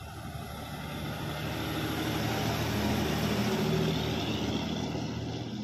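Heavily loaded multi-axle truck driving past close by, its diesel engine running steadily over tyre noise on the asphalt. The sound swells as it approaches, is loudest about three to four seconds in as it passes alongside, then fades as it moves away.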